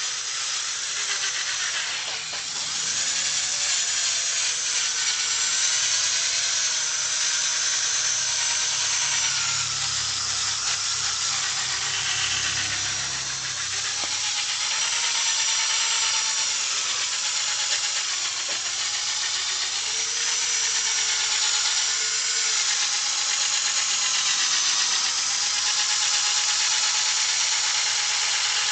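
Electric drill spinning the 3M kit's wet 3000-grit sanding disc against a plastic headlight lens. The motor's whine runs throughout, its pitch wavering up and down as the pressure on the lens changes.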